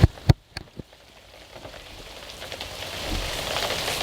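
A few sharp clicks as the shotgun microphone's switch is moved, then rain pattering, fading up gradually over the next few seconds.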